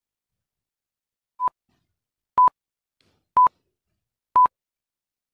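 Electronic countdown-timer beeps ticking off the seconds to answer a quiz question: four short, identical beeps one second apart, starting about a second and a half in, the first softer than the rest.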